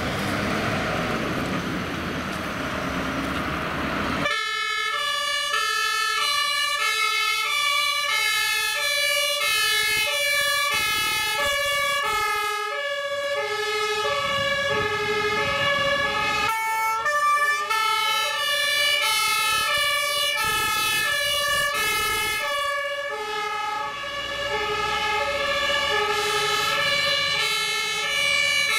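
Two-tone sirens of several fire engines sounding together at different pitches, each one alternating between a high and a low note. They start about four seconds in, after a few seconds of broad rushing vehicle noise.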